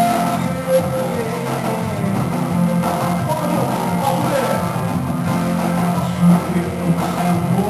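Revival worship music played by a band, with guitar to the fore, running steadily.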